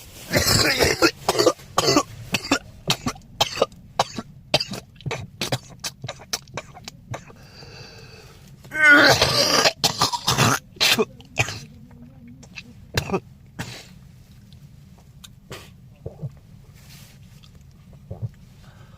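A young man coughing hard and over and over: a rapid run of coughs, then a longer and loudest fit about nine seconds in, thinning to occasional weaker coughs and throat clearing toward the end. It is a severe, persistent cough.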